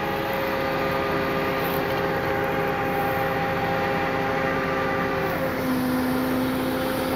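Tow truck's hydraulic winch running under load over the idling truck engine, a steady mechanical whine with several held tones that shift lower about five seconds in.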